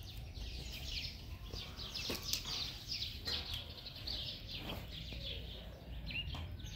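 Small birds chirping continuously, many short high notes overlapping, with a few faint knocks.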